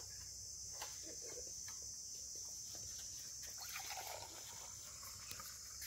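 Faint steady high-pitched chirring of crickets, with a few faint clinks of steel tumblers.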